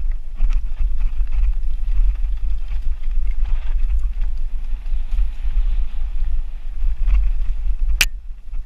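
Mountain bike rolling down a rocky dirt singletrack: wind rumbling on the camera's microphone over the rattle and crunch of tyres on dirt and stones, with a sharp clack about eight seconds in.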